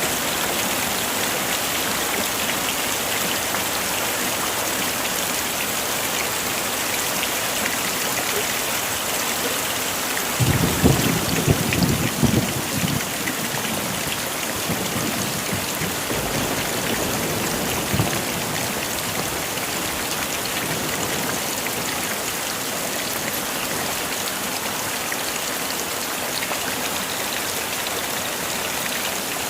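Heavy rain falling steadily. About ten seconds in, a deep rumble of thunder comes in jolts for two or three seconds, with a smaller one about seven seconds later.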